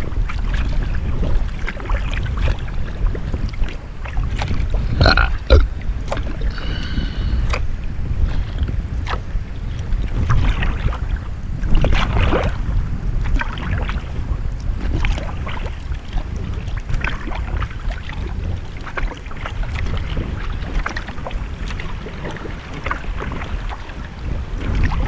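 Kayak paddle strokes dipping and splashing in river water, over a steady low rumble of wind on the microphone. A brief high-pitched call sounds about five to seven seconds in.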